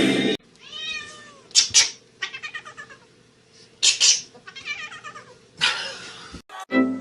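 A cat meowing and yowling in a string of short calls, with several harsh, noisy bursts between them.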